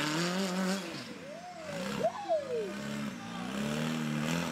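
Rock-crawler buggy's engine revving up and down as it works over boulders, with a quick sharp rev about two seconds in.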